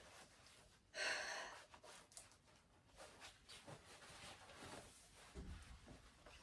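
Near silence in a small room, broken about a second in by one short, breathy hiss, with a soft low thump near the end.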